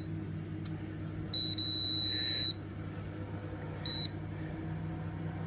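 Electronic beeps from an induction cooktop's touch controls as it is switched on and set, all at the same high pitch: a short beep, then a longer beep of about a second, and another short beep about four seconds in. A steady low appliance hum runs beneath.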